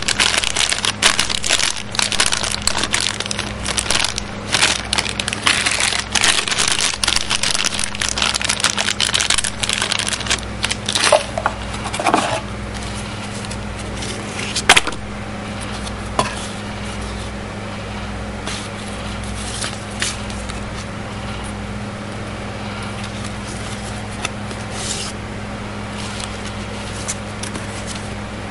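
Clear plastic accessory bag crinkling in the hands for about the first eleven seconds, then a few soft paper rustles and a sharp click about fifteen seconds in, over a steady low hum.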